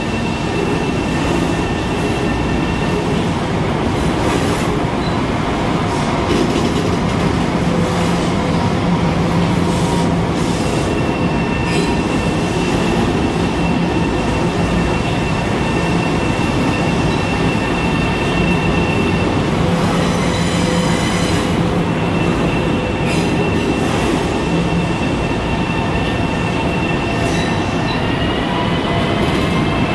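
Long Island Rail Road electric multiple-unit train pulling out along an underground platform, its wheels rumbling loudly on the rails with a few sharp clicks. A high steady wheel squeal comes and goes, and a rising whine sets in near the end as the last car passes.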